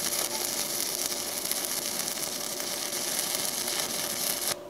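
Stick-welding arc from a 3/32-inch 7018 electrode on a mini inverter welder near 90 amps: a steady crackle and hiss of an arc running smoothly, cut off suddenly near the end as the arc is broken.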